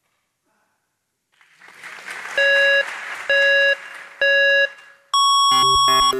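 Electronic race-start signal: three short beeps about a second apart, then one longer, higher beep for the go, over a swelling background hiss. Music with a beat kicks in right after the go beep.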